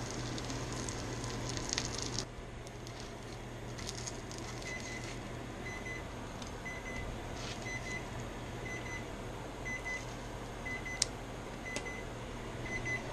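Breaded fish sizzling in a cast-iron skillet, which drops away about two seconds in. From about five seconds in, a kitchen timer beeps in short, high double beeps about once a second, with one sharp click near the end.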